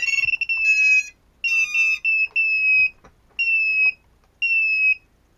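Walkera Furious 215 racing drone beeping on power-up: a quick run of start-up tones, then a single high beep, falling slightly in pitch, about once a second. The drone just continues to beep because it will not bind to the controller, a fault the owner puts down to the receiver pins breaking away from the power distribution board.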